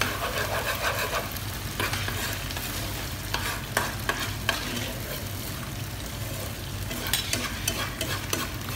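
A metal ladle stirring vegetables in a wok of hot broth, with scattered clacks and scrapes of the ladle against the pan over the steady sizzle of the cooking. A steady low hum runs underneath.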